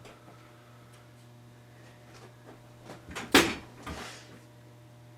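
A steady low electrical hum, with a short cluster of sharp clunks about three seconds in, the loudest about half a second later.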